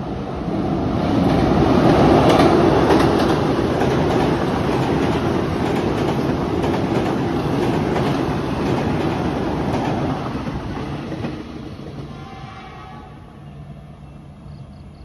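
KRL electric commuter train passing close at speed, its wheels clattering over the rail joints, then fading away as it recedes down the line.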